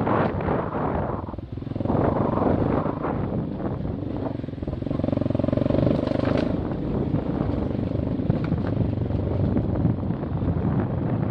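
Single-cylinder dirt bike engine running while riding, easing off briefly about a second and a half in and revving up about five seconds in before settling again.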